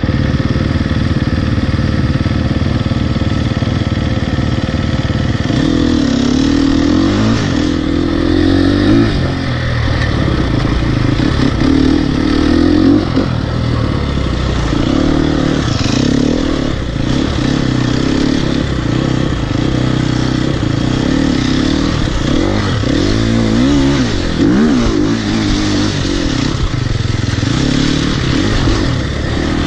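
Enduro dirt bike engine, running steadily at first, then revving up and down over and over as the bike rides off about six seconds in.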